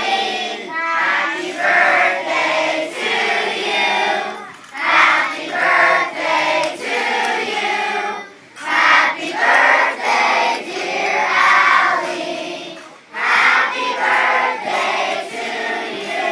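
A large group of children singing a birthday song together, in four phrases with short breaks between them.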